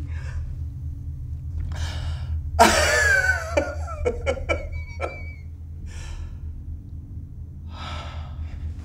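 A man breathing hard and gasping in elated disbelief, with one loud cry falling in pitch about two and a half seconds in, then a few sharp clicks and a short high whine. A steady low hum runs underneath.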